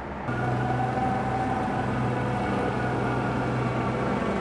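Heavy diesel demolition machinery running steadily with a low engine hum, coming in louder just after the start.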